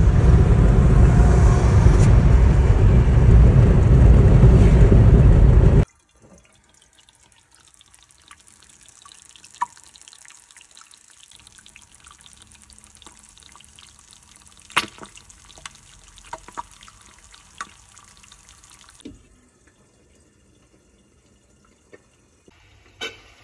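A loud, steady rushing noise for about six seconds that cuts off suddenly. After it comes a quiet stretch with scattered small clicks and taps.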